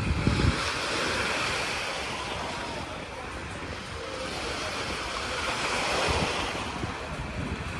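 Small waves breaking and washing up on a sandy beach, the wash swelling and easing, with wind buffeting the microphone, hardest just at the start.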